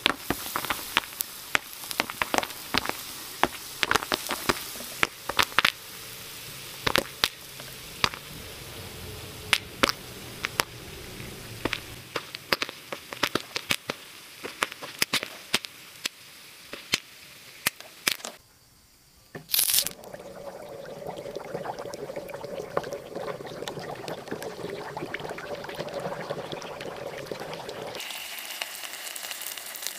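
Popcorn popping: sharp, irregular pops several times a second. About two-thirds of the way through, the popping gives way to a brief hush and one loud pop. A steady bubbling, fizzing liquid sound follows.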